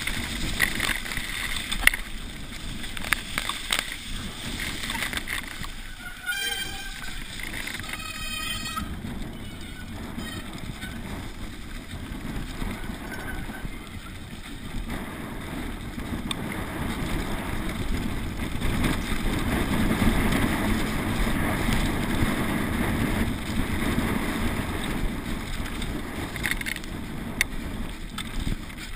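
Downhill mountain bike ridden fast down a dry grass and dirt track, heard from a camera on the bike: continuous tyre noise over the ground, rattling of the bike and wind on the microphone, with the rider breathing hard. A brief pitched sound comes about six to eight seconds in, and the rushing grows louder in the second half.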